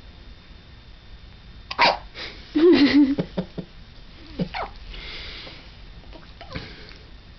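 Baby hiccuping: a string of short, sudden hiccups, starting about two seconds in and spread over the next few seconds, with a brief wavering vocal sound among them.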